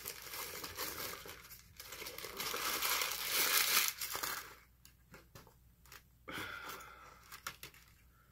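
McDonald's food packaging crinkling and tearing as it is opened, for about four seconds, followed by a few light clicks and rustles.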